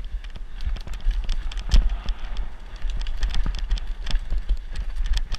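Mountain bike descending a rough dirt trail at speed: dense, irregular rattling and knocking of the bike over the ground, with a hard knock a little under two seconds in, over a constant low rumble of wind on the microphone.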